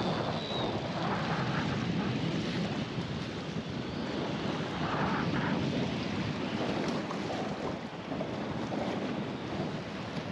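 Wind buffeting the microphone over choppy seawater, with waves splashing underneath.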